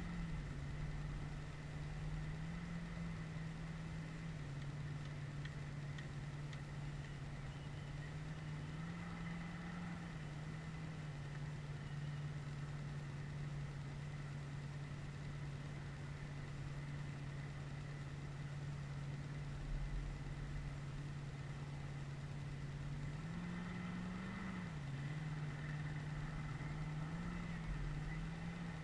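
An engine idling steadily, its pitch rising briefly a few times as it is revved lightly.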